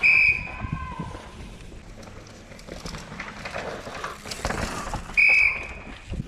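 Two short, shrill whistle blasts about five seconds apart. Between them, a downhill mountain bike's tyres skid and scrabble through loose dirt as a rider passes.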